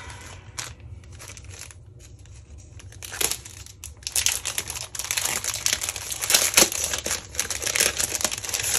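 Packaging crinkling and rustling as packs of scrapbook envelopes are handled and unwrapped: a few light crackles at first, then dense crinkling from about halfway through.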